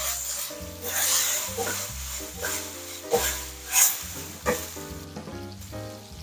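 Chicken and shimeji mushrooms sizzling in a hot wok, tossed with a wooden spatula that scrapes and knocks against the pan several times, over background music.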